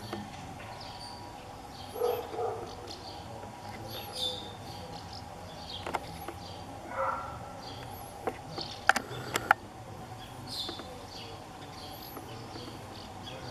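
Small birds chirping on and off over a steady low background hum. A few sharp clicks come close together about nine seconds in.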